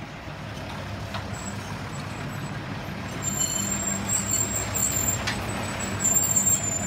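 Diesel engine of a Mercedes-Benz garbage truck running as the truck creeps past close by, growing louder about three seconds in. Thin high-pitched squeals come and go over the engine from then on.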